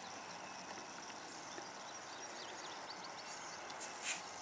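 A white-tailed deer doe gives one short, sharp sneeze, a blast of air through the nose, about four seconds in. Before it, faint high chirps sit over a steady outdoor background.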